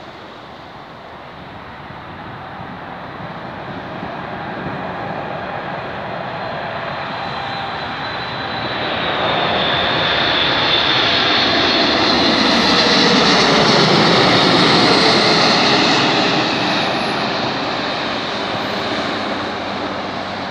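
Boeing 747-8F freighter on final approach, its four GEnx turbofan engines whining as the jet comes in low. The sound grows louder to a peak about two thirds of the way through, the pitch drops as the aircraft passes, and it fades as the jet descends to the runway.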